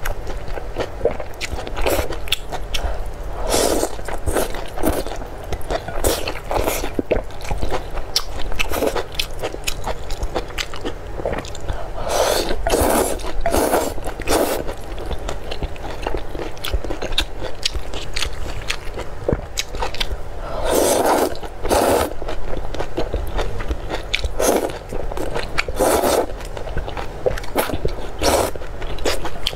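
Close-miked slurping of glass noodles, repeated many times, a second or less each. Wet chewing comes in between the slurps.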